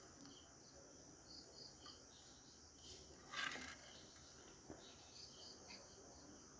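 Faint chirping of insects, short chirps repeating over a steady high thin drone, with one brief scrape about three and a half seconds in.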